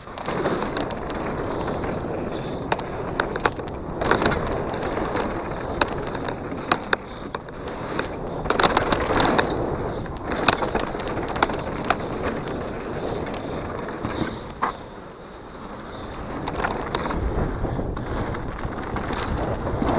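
Downhill mountain bike rolling fast over a dirt and gravel trail, heard close up from the bike: steady tyre noise with the bike rattling and clattering over bumps in many sharp knocks. The noise eases off briefly about three-quarters through, then builds again.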